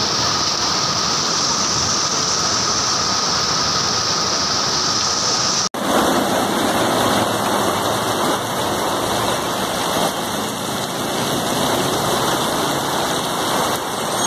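Heavy monsoon rain pouring onto a flooded street: a steady loud hiss, with a faint steady tone under it at first. About six seconds in it cuts abruptly to another recording of heavy rain and water, slightly louder and fuller.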